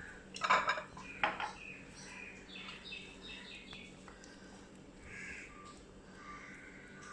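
A kitchen utensil clattering against cookware twice in the first second and a half, while ketchup goes onto the pizza base, with birds calling faintly in the background.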